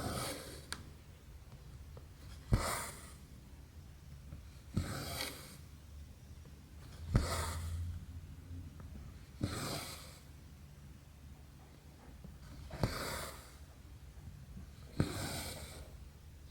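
Cross-stitch needle pushed through 11-count fabric with a sharp click, then the thread drawn through with a short swish, repeating about every two and a half seconds, seven stitches in all.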